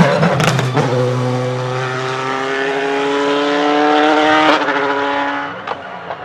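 BMW M4 DTM race car passing close by, then accelerating hard away, its engine note climbing steadily through a gear with a sharp crack at a gear change about four and a half seconds in, fading into the distance. A few sharp cracks just after it passes.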